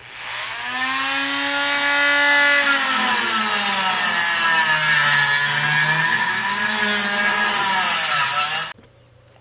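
Handheld rotary tool with a small abrasive cutoff wheel spinning up and cutting through a steel Allen key, throwing sparks. Its high whine rises as it comes up to speed, drops in pitch as the wheel bears into the key and recovers, then stops abruptly near the end.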